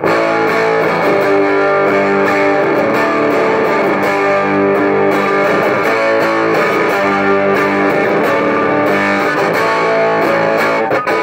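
Electric guitar, a Gibson Les Paul Traditional, played loud and without a break through a Knox Trem-tone tube amp turned all the way up. The amp has just been recapped and grounded to cut its hum.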